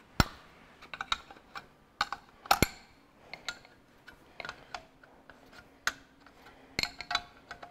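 Steel spanner clinking against the injector line nuts and fittings of a Ferguson 23C diesel engine as the lines are worked loose. It makes about a dozen irregular sharp metallic clicks, some ringing briefly; the loudest comes just after the start and another strong one about two and a half seconds in.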